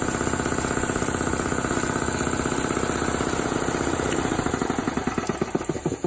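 Electric-motor-driven reciprocating piston air compressor running with a rapid, even pumping knock. About four to five seconds in it is switched off, and the beats slow and fade as the pump coasts to a stop.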